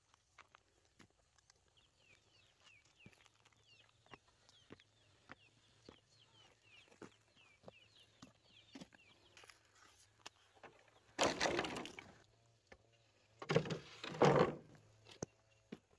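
Soft footsteps on a dirt path while a small bird chirps a run of short falling notes. About 11 seconds in and again about 13½ seconds in come two loud rattling scrapes, each lasting about a second.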